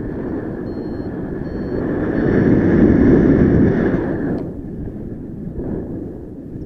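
Wind rushing over the microphone during a paragliding flight, swelling loudest about halfway through and easing off after about four seconds. Three faint, short high beeps come in the first half.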